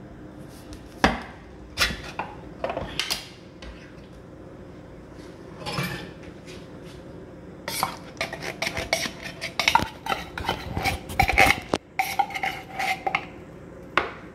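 Kitchen utensil clinking, knocking and scraping against a container and mixing bowl: a few scattered knocks, then a dense run of clinks and scrapes from about halfway, some ringing briefly.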